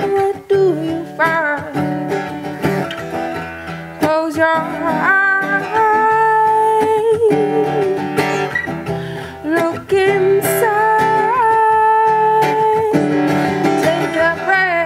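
A woman singing a soul melody with long held notes, over a strummed acoustic guitar.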